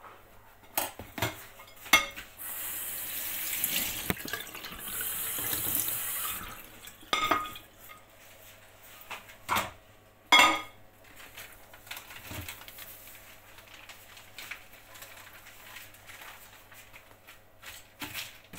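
Kitchen tap running for about four seconds, with dishes and utensils clattering in several sharp knocks before and after it.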